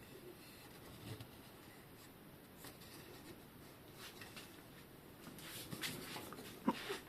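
Quiet handling of bicycle headset parts during disassembly: soft rubbing and scattered small clicks, more of them in the second half, with one sharper click near the end.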